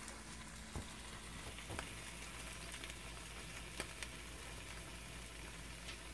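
Food sizzling faintly and steadily inside a closed George Foreman contact grill: leftover fried chicken tenders with melting cheese cooking between the hot plates, with a few faint pops.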